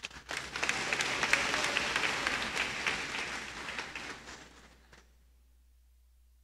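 Audience applauding: many hands clapping at once, starting abruptly, holding for about four seconds, then thinning out and stopping about five seconds in. A single short knock near the end.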